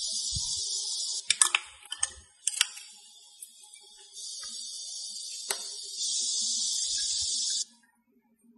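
Liquid being poured into glass bottles: a steady high hiss, broken by a few sharp clinks between about one and a half and two and a half seconds in. The hiss grows louder near the end and then cuts off suddenly.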